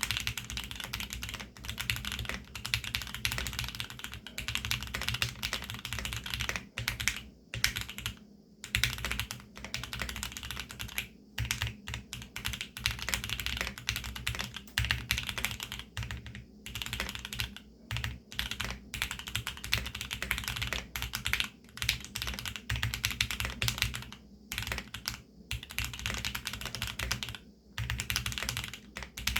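Steady fast typing on a Geonworks F1-8X custom aluminium keyboard with a polycarbonate bottom, lubed Tealios V2 linear switches and Monstargear TUNA PBT double-shot keycaps. Dense runs of keystrokes with a few short pauses.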